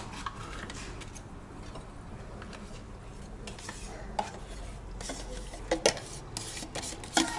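A spoon scraping thick sour cream out of a plastic tub into an enamel bowl, with a few light clicks and knocks of the spoon and the containers.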